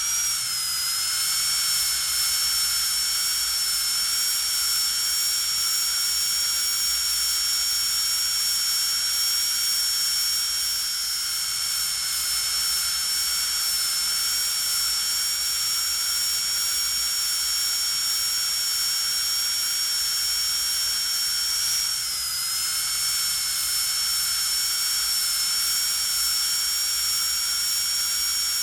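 Dentist's high-speed drill running with a steady, high-pitched whine. Its pitch dips briefly about 22 seconds in, then climbs back to speed.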